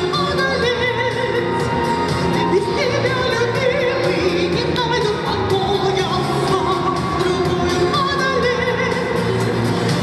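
A woman sings a melody with vibrato into a microphone, amplified through the PA, over pop-style instrumental accompaniment with a steady beat.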